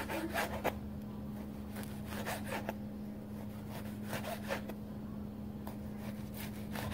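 Chef's knife slicing through soft food and knocking on a plastic cutting board, in short uneven runs of strokes every second or two, over a steady low hum.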